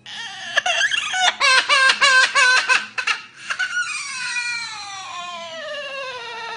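Parrot imitating a baby crying: a run of quick, wavering sobs, then one long wail that falls steadily in pitch.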